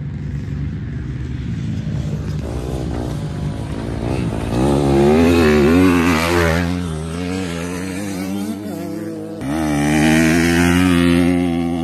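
Dirt bike engines revving hard through a dirt corner, the note rising and falling with the throttle. It passes loudest about five seconds in, then cuts off suddenly, and a second loud pass follows about ten seconds in.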